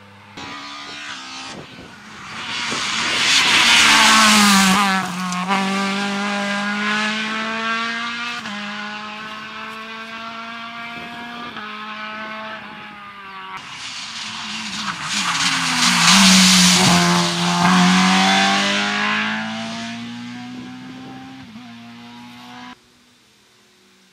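Rally cars driven flat out on a gravel stage, one after another, their engines revving hard. The engine note climbs in steps through the gear changes. The two loudest cars go by about four and sixteen seconds in, and the sound cuts off suddenly near the end.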